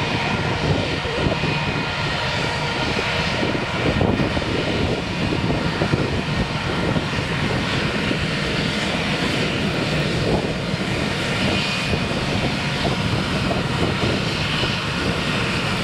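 Airbus A319's twin jet engines at taxi power as the airliner rolls by, a steady whine over a low rumble.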